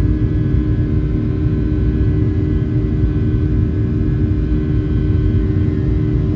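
Steady low roar of a Boeing 757-300's jet engines and rushing air, heard inside the cabin during the climb after take-off, with a few constant engine hum tones over it.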